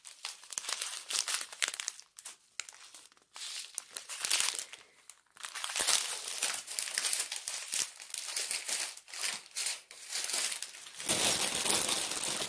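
Small resealable plastic bags of diamond-painting drills crinkling as they are handled and laid down, in irregular bursts with short pauses, louder near the end.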